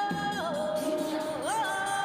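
Background music: a single melodic line holding long notes, sliding down to a lower note about half a second in and bending up again near the end.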